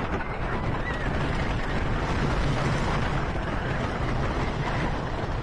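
Wooden roller coaster train running along its track, heard from a seat on the train: a steady rumble and rattle of the wheels and cars mixed with rushing wind on the microphone.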